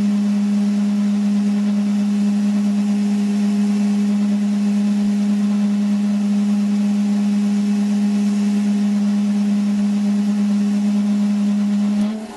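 Metal lathe taking a turning cut on steel bar held in the chuck without a tailstock centre, with a steady, loud ringing hum that dips briefly near the end. The cut is too heavy for the unsupported bar, which chatters.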